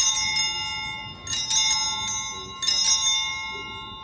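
Altar bells rung three times at the Sanctus of the Mass, each ring a quick jangle of several strikes about a second and a half apart. Clear ringing tones carry on and fade between and after the rings.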